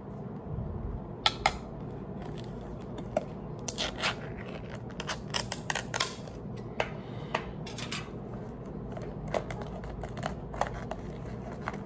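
Small metal tin of pipe tobacco being opened by hand: a scatter of short sharp clicks and scrapes as the lid is worked free and lifted off, thickest between about four and six seconds in.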